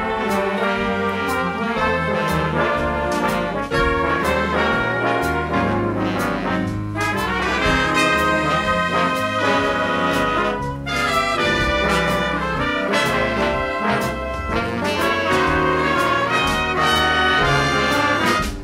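Big band swing music with the trumpet and trombone sections playing together over a steady beat of drums and cymbals.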